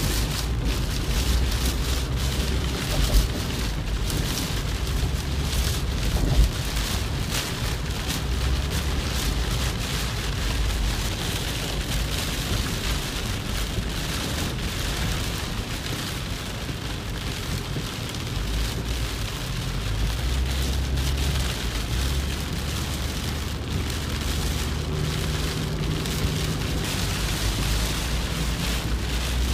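Heavy rain pelting the windshield and roof of a moving car, heard from inside the cabin, over the steady low rumble of the car on the wet road. Two sharper knocks stand out, about 3 and 6 seconds in.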